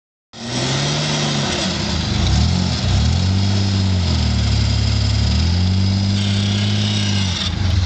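GMC Jimmy SUV's engine revving up and falling back again and again under load as it climbs over a sand hill. It starts abruptly just after the beginning.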